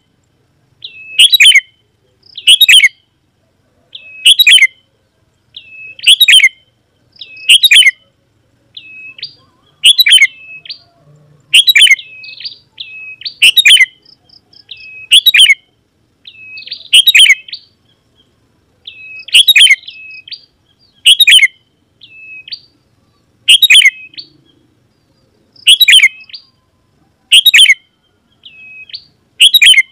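Sooty-headed bulbul (kutilang) calling loudly and over and over, a sharp call about every one and a half to two seconds, with shorter, softer hooked notes in between.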